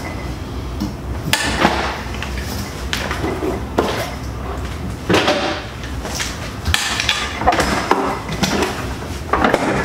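Rummaging on pantry shelves: irregular knocks, clunks and clatter as bottles and containers are moved about.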